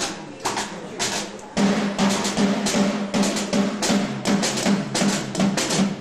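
Avant-garde instrumental band with keyboards and percussion playing live. Separate percussion hits come first; about a second and a half in, the music turns suddenly loud and dense, with rapid drumming over a low pulsing note.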